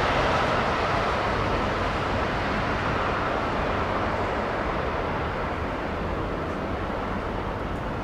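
Jet engine noise from a British Airways Boeing 767's Rolls-Royce RB211 engines as it slows on the runway after landing. It is a steady rushing sound that slowly fades.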